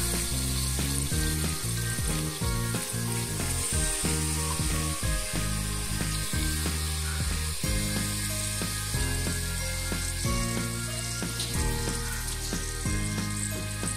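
Raw duck pieces sizzling in hot oil and spices in a pressure-cooker pot, a steady frying hiss, with background music underneath.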